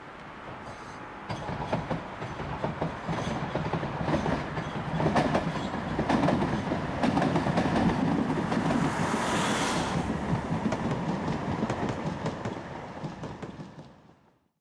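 Alstom Citadis Dualis tram-train passing on curved track, its wheels clicking over rail joints and points. The sound builds about a second in and holds loud with a quick run of clicks, with a brief high hiss about two-thirds through. It fades and cuts off near the end.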